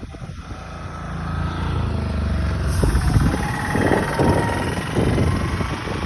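A motor engine running, growing louder over the first three seconds and then staying loud, with a rushing noise over it.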